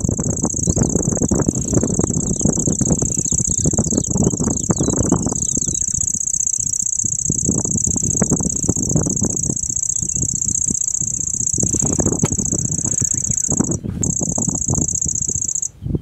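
Lanceolated warbler singing its high, insect-like reeling trill ('shiri-shiri'). It runs unbroken for about fourteen seconds, breaks off for a moment, resumes, and stops just before the end. A loud, uneven low rumbling noise runs underneath.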